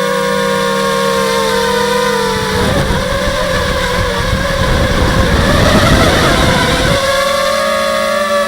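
H250 FPV quadcopter's electric motors and propellers whining at a steady pitch, turning rougher and noisier with a wavering pitch from about two and a half to seven seconds in, then settling back to the steady whine.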